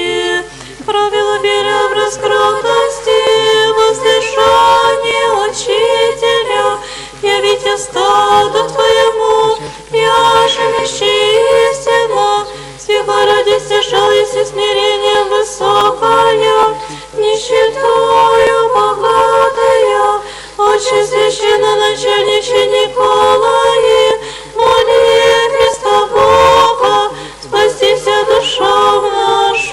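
Orthodox church choir singing a liturgical hymn a cappella in slow chant, with held, gliding notes and no pause. It is heard through a radio broadcast, with the top end cut off.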